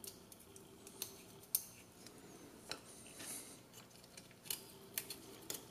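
Faint, scattered light clicks and taps of small parts being handled: drone frame plates and a metal standoff being fitted together by hand.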